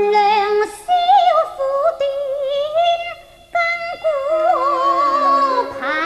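Cantonese opera singing in gunfa (滾花) free-rhythm style: one voice sliding and wavering in pitch over held instrumental notes, with a short pause a little past three seconds in.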